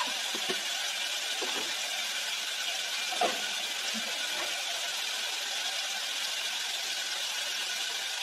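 Onions and tomatoes sizzling steadily in oil in a stainless steel pot, with a few faint knocks.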